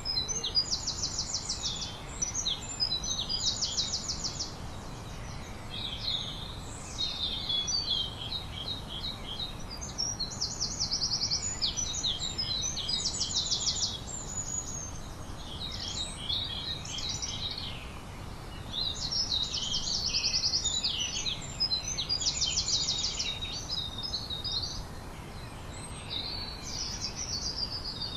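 Songbirds singing: fast, high trills and chirping phrases that come again every few seconds, over a steady low background noise.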